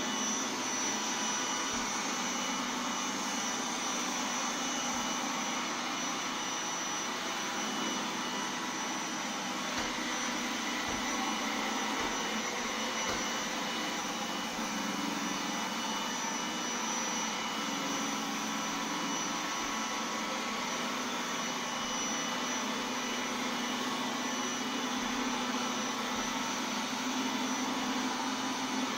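Roomba 980 robot vacuum running steadily, its suction fan and brushes making an even rushing noise with a high whine. A few soft low knocks come midway.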